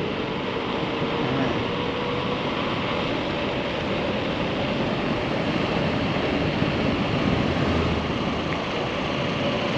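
Steady rush of wind over a handlebar-mounted camera's microphone, mixed with bicycle tyre noise on asphalt, as the bike coasts downhill at speed.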